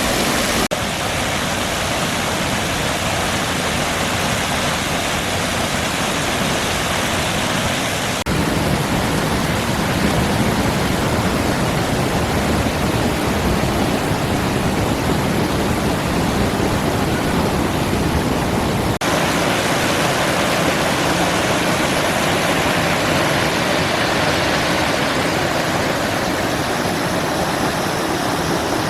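Geroldsau waterfall: water falling and rushing over rocks, a loud, steady rush, changing abruptly in tone about 8 and 19 seconds in.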